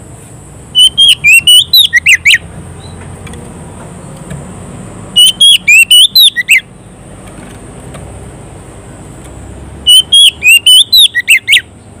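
Oriental magpie-robin singing loud, clear whistled phrases: three bursts of quick rising and falling notes, each about a second and a half long and about four seconds apart. It is the song a kacer gives when calling out to a rival.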